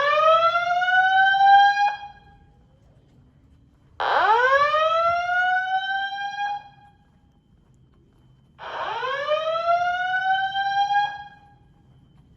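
Fire alarm speakers sounding a slow whoop evacuation tone from the Simplex 2001-8005 audio system: three loud whoops, each a rising sweep that levels off and cuts off abruptly, repeating about every four and a half seconds.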